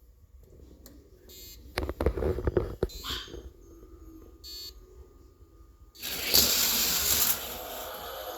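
Toy die-cast cars clicking and clattering on a plastic race track, then a louder rushing rolling noise for about a second and a half starting six seconds in.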